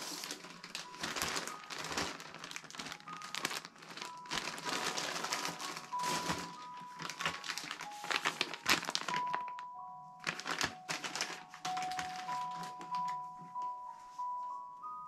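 Plastic packaging crinkling and rustling as a pack of baby wipes is handled, over soft melodic background music. The crinkling dies away about ten seconds in, returns briefly, then leaves mostly the music.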